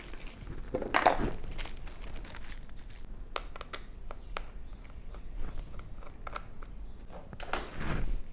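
Hands handling small objects at a workbench: scattered light clicks and rustles, with a louder rustle about a second in and another near the end.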